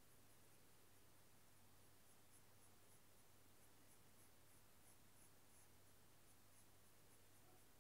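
Faint pencil scratching on drawing paper: short, irregular strokes, a few a second, over a low steady hum.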